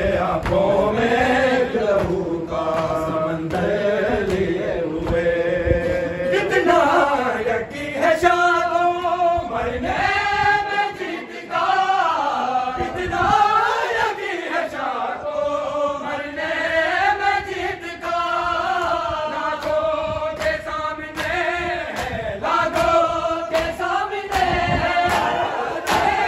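A group of men chanting an Urdu noha, a Shia mourning lament, together in long sung lines that rise and fall in pitch.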